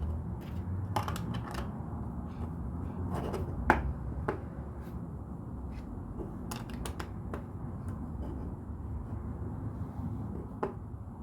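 Plastic LEGO bricks clicking and rattling as they are handled and pressed together, in irregular small clicks, the sharpest a little under four seconds in, over a low steady hum.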